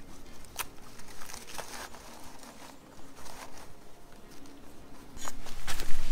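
Dry birch bark crinkling and crackling as it is pushed into a shorts pocket, in scattered short crackles. About five seconds in, footsteps on a leaf-strewn dirt trail begin, louder, with a low rumble on the microphone.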